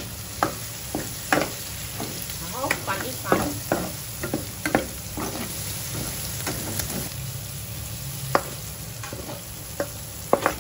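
Scallops sizzling in butter and garlic in a metal pan, turned with a metal spatula that scrapes and clacks against the pan. The strokes come thick and fast for the first five seconds, then more sparsely.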